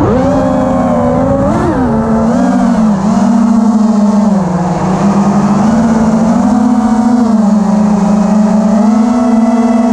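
FPV quadcopter's motors and propellers whining, the pitch jumping up sharply at the start, then rising and falling with the throttle.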